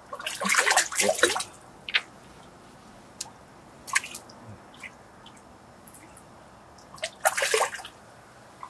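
Water splashing in two bursts, about a second in and near the end, with a few single splashes between: a hooked crucian carp thrashing at the surface as it is brought in and landed.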